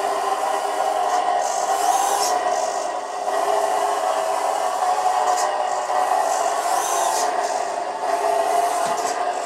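Electronic engine sound from the sound module of an RC Bruder Dodge RAM conversion, playing through the model's small speaker as it drives, with its pitch shifting a little with the throttle, mixed with the whir and scrape of the small electric drivetrain and tyres.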